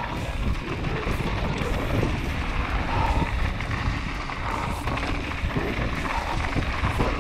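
Steady wind noise on the microphone mixed with the rumble of a mountain bike riding a dirt trail.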